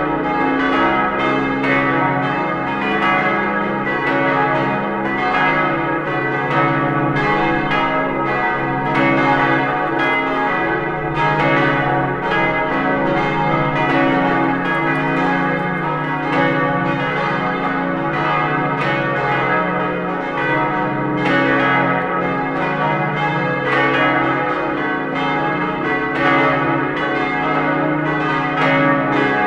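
A peal of several large church bells swinging and ringing together, their strokes overlapping in a steady, continuous jumble of tones.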